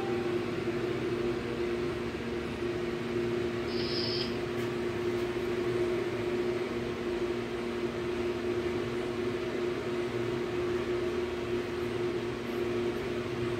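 Steady mechanical hum holding two low, even tones, with a brief high-pitched squeak about four seconds in.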